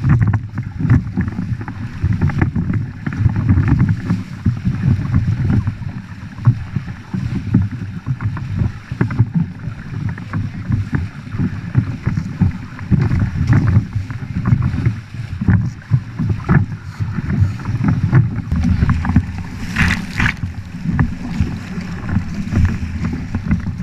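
Wind buffeting the microphone over the rush and splash of water along the hull of a Nacra 6.0 catamaran sailing at speed, with a brief louder hiss of spray near the end.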